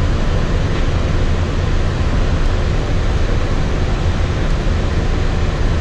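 Walt Disney World monorail train running at speed, heard from inside the passenger cabin: a steady low rumble under an even rushing hiss.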